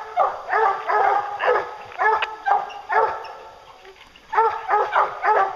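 Bear hounds barking over and over, about two barks a second, with a short lull a little before four seconds in. This is the barking of hounds holding a black bear up a tree.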